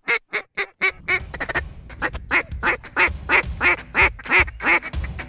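A duck call blown in a run of short, quacking notes, about three a second, louder through the middle of the run. A low rumble sits underneath from about a second in.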